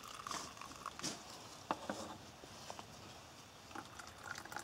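Coffee pouring in a faint trickle from a glass-and-steel French press into paper cups, with a few soft ticks and clicks.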